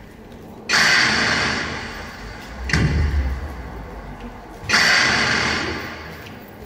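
Sparse, heavy percussive hits from a dance track over the hall's sound system, about one every two seconds. Bright crashes that take a second or two to ring out alternate with a deep thump.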